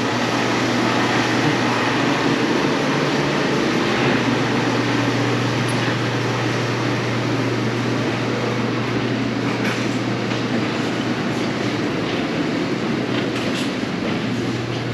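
Steady machinery noise with a constant low hum.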